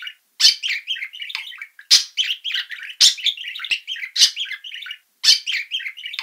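Budgerigars chirping and chattering: a rapid, high-pitched run of short calls with a few sharp louder chirps and brief pauses.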